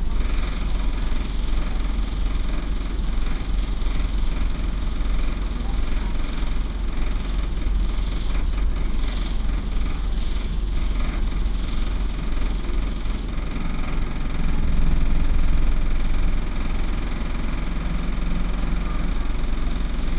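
Optare Solo M950 single-deck bus's diesel engine running, heard from inside the passenger saloon as a steady low drone. It swells briefly about three-quarters of the way through.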